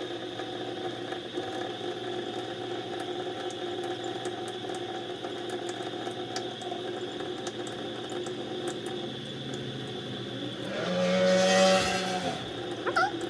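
Steady mechanical hum made of several constant tones, with light ticks. About eleven seconds in, a louder sound with a falling pitch rises over it for a second or two.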